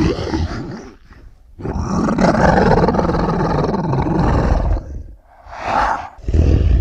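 Monster roars from the TriStar Godzilla (1998) film sound effects. A short gap is followed by one long roar of about three seconds, then two shorter roars near the end.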